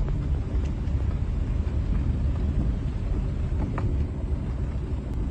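Car driving on a rough, unpaved dirt track, heard from inside the cabin: a steady low rumble of engine and tyres on the uneven surface, with a couple of faint knocks.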